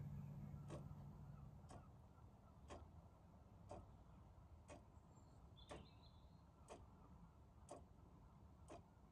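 Faint, regular ticking of a clock, about one tick a second, over near silence, with a low hum fading out in the first second or two.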